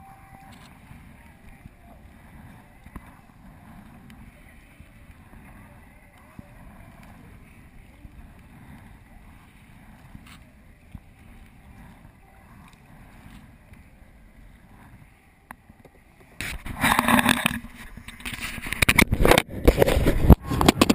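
Faint, muffled water and paddling noise of a sea kayak under way, heard through an action camera's waterproof housing. About three-quarters of the way in, loud knocking, scraping and rubbing starts as the camera housing is handled.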